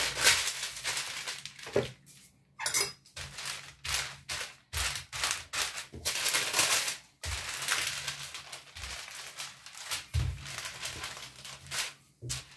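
Baking parchment rustling and crinkling under a wooden rolling pin as it is pushed back and forth over dough sandwiched between two sheets, in a series of uneven strokes with brief pauses between them.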